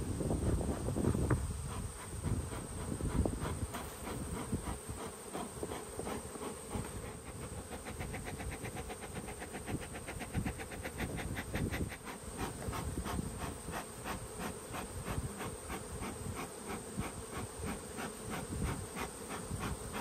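Beekeeper's bellows smoker puffing, a hissing rush of air and smoke blown over the open hive frames.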